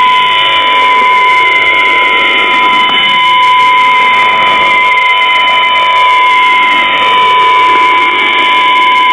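Shortwave radio reception on 4614 kHz: a steady high tone over a noisy hiss, with slow gliding tones sweeping down and up beneath it.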